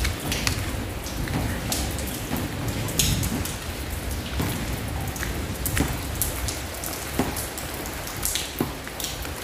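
Rain falling, with many sharp drips and splashes of water striking hard tiled surfaces.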